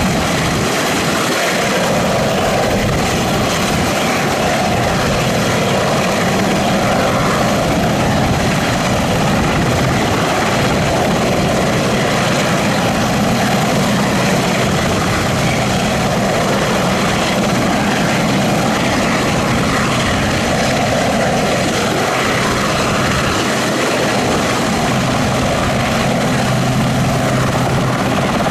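Westland Sea King HAS.5 helicopter hovering low, its twin Rolls-Royce Gnome turboshaft engines and main and tail rotors running loud and steady, with a thin steady turbine whine over the rotor noise.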